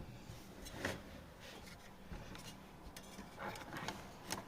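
Faint handling noises from computer parts being worked on: a few scattered light clicks and rubbing over a low steady hum.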